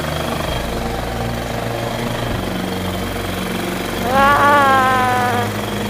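Small ATV engine running as the quad bike rides along a dirt track, its pitch shifting a few times. About four seconds in, a high voice calls out once, rising and then slowly falling, for over a second.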